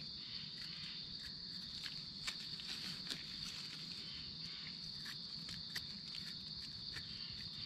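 Steady, high-pitched insect chirring, with scattered light clicks and rustles over it.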